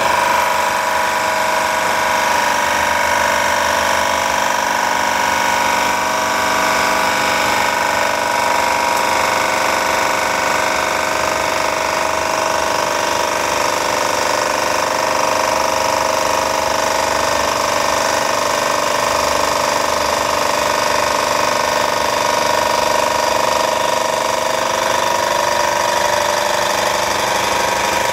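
A motor or engine running loudly and steadily, a constant mechanical drone with several held tones that does not change in speed.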